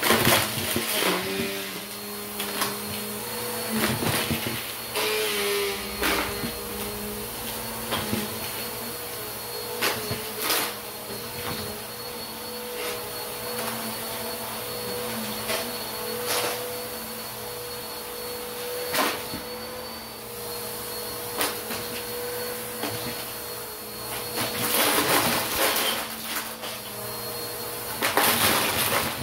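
Bissell PowerForce upright vacuum running on carpet with a steady motor hum and a thin high whine. Plastic bottle caps and coins clatter and rattle as they are sucked up through the brush roll. The clattering comes in bursts near the start and again near the end, with single clicks in between.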